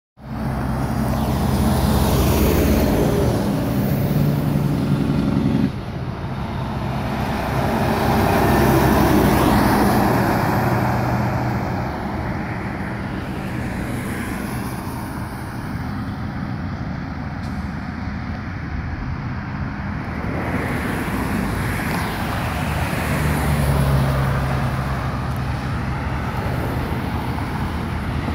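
Road traffic passing: trucks and cars going by, with the drone of a truck's diesel engine loud near the start and again near the end, and tyre noise in between. The sound changes suddenly about six seconds in.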